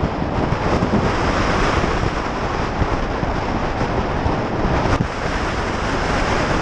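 Steady wind rush over a helmet-mounted camera microphone while riding a motorcycle, with the engine and road noise underneath.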